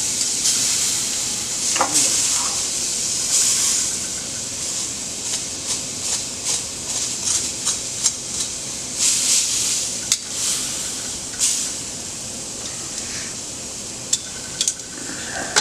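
Pork chop sizzling as it sears in a hot skillet: a steady high hiss, with scattered short clicks and taps of a utensil against the pan.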